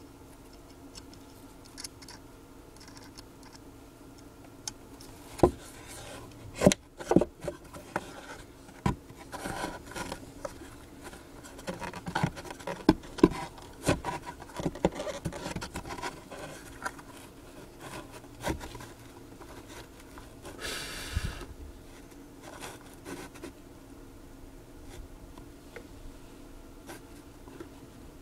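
Hands fitting a stamped-steel-framed Peerless woofer into a subwoofer cabinet's cutout: irregular clicks, taps and rubbing as the driver is handled and seated, with a brief scraping rustle a little past the middle.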